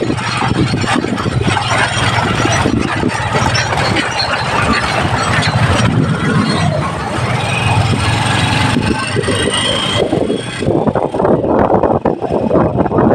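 Motorcycle engine of a kolong-kolong cargo tricycle running under way, with road noise. A dump truck goes by on the highway about halfway through.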